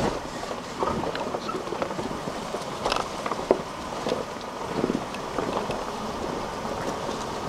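Four-wheel drive driving over a rough dirt track, heard from inside: a steady drive noise of engine and tyres with the body and load rattling. Scattered sharp knocks and clunks come through it, the sharpest about three and a half seconds in.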